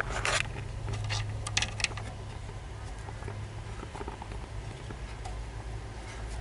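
SEC-E9 key cutting machine running with a steady low hum while it cuts an HU92 key blade, with a few short scratchy clicks in the first two seconds.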